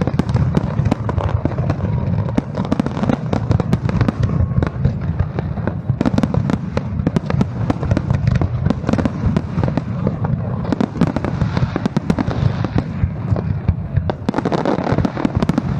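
New Year fireworks display going off in a dense, continuous barrage: rapid sharp bangs and crackles over a steady deep rumble of booms.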